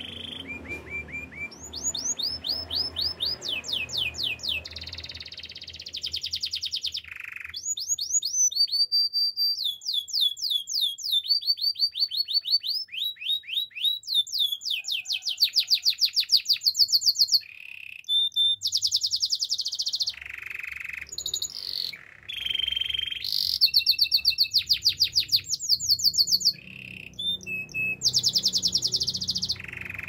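Domestic canary singing a continuous song of rapid trills, each a quick run of repeated down-sweeping notes, switching to a new phrase every second or two, with short breaks.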